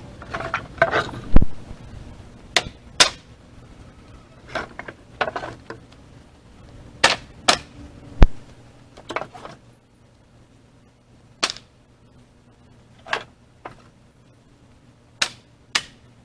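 Pieces of firewood being set and dropped onto a woodpile, a string of sharp wooden knocks and clunks at irregular intervals. There is some scraping and rustling in the first second or so, and the heaviest thump comes about a second and a half in.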